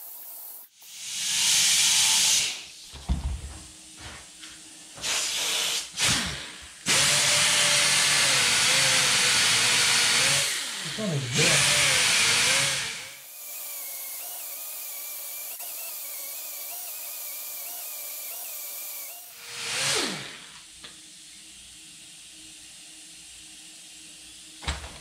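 Right-angle air die grinder with an abrasive disc, grinding the old chrome off a steel exhaust tip in several bursts of a few seconds each, with a loud rush of air. Its whine wavers and dips as the disc is pressed to the work. In the middle a quieter steady tone holds for several seconds.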